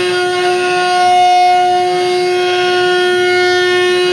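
DIY CNC router's spindle motor running at high speed: a steady high-pitched whine with several overtones, over a rushing noise that swells and fades about every second and a half.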